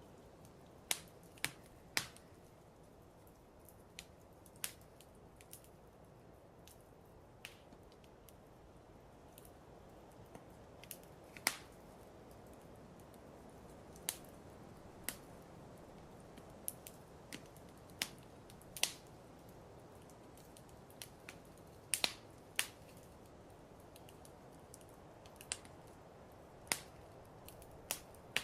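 Fireplace crackling: irregular sharp pops and snaps, about one every second or two, over a soft steady hiss.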